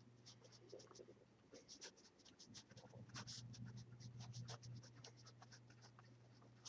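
Pen writing on graph paper: faint, irregular scratching strokes as words are written out by hand.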